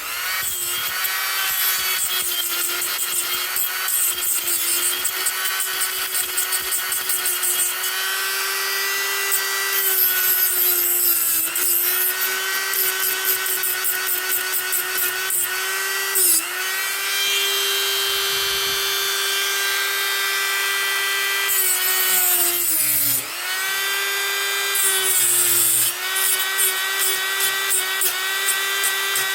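A Dremel rotary tool with a diamond cutting wheel runs at a steady high pitch, grinding into the metal rivet heads of a deadbolt. Its pitch dips briefly several times as the wheel is pressed into the rivets, and the spinning wheel catches them and turns them loose.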